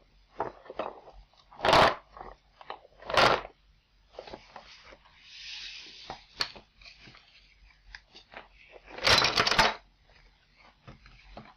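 Wooden jigsaw puzzle pieces being handled: small clicks and rustles, with three louder rattling clatters of loose wooden pieces, two in the first few seconds and one later on.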